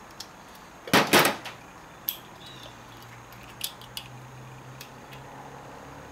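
Small metal clicks and clinks of snap ring pliers working at the governor valve of a 42RH/A500 automatic transmission: a sharp double clink about a second in, then a few lighter ticks.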